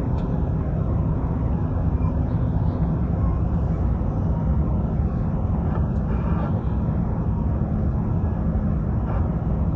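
Steady low rumble inside the cabin of an Airbus A350-900, from its Rolls-Royce Trent XWB engines and the airflow, on approach with the flaps extended.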